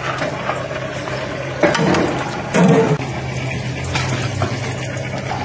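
Liquid sloshing and water running, over a steady low hum.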